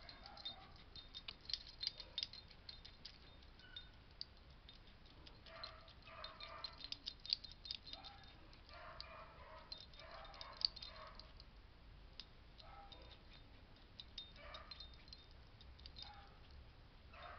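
Faint rattling of a puppy's new collar, quick clusters of light clicks from the collar and its buckle as he scratches at it with a hind leg, coming in spells a few seconds apart.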